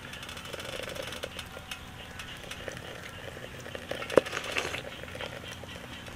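Hotpot broth simmering in a metal pot on a tabletop burner, with small clinks of chopsticks and a ceramic rice bowl and one sharper clink about four seconds in.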